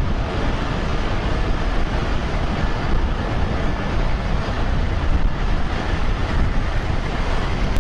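Humvee's V8 diesel engine running as the truck rolls slowly forward, under a steady low rumble of outdoor noise.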